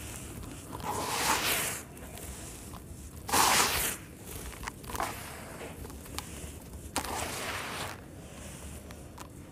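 Handfuls of dry, gritty crumbled sand-cement pouring from hands back into a plastic tub, three crunchy pours with the loudest about three and a half seconds in, and small grains ticking between them.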